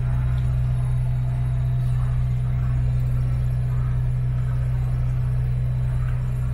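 Inboard engine of a Saga 27 motorboat running steadily: a constant low drone with no change in pitch or level.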